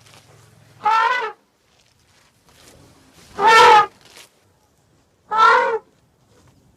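Woolly mammoth sound effect: three short, elephant-like trumpeting calls, each about half a second long, about two seconds apart, with the middle one loudest. A faint low rumble sounds before the first call.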